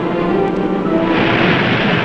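Background music played as a scene transition, with held tones and a rush of noise swelling in about a second in.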